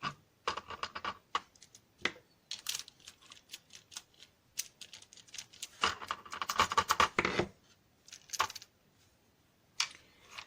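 Small metal clicks, taps and scraping as an American Lock 1100 padlock is taken apart with small tools, working out its screw. About six seconds in there is a dense stretch of rattling and scraping lasting over a second, followed by a few single clicks.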